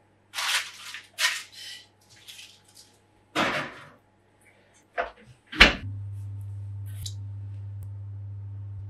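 Metal muffin tin and oven door being handled: a few clattering scrapes, then a loud thud of the oven door shutting about halfway through. A steady low hum follows.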